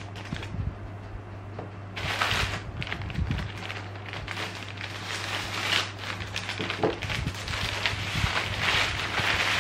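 Grey plastic poly mailer bag crinkling and rustling as it is cut open with scissors and pulled apart by hand, louder from about two seconds in.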